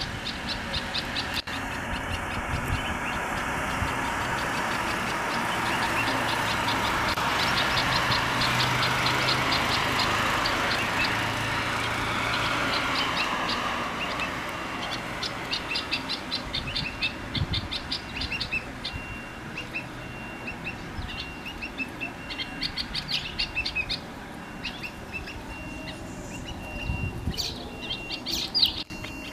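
Small birds chirping in fast repeated runs of short, high notes. A broad rushing noise rises and fades behind them in the first half.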